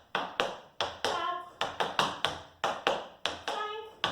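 Metal taps on tap shoes striking the floor in a series of sharp, evenly paced clicks, about three to four a second: a time-step break danced slowly.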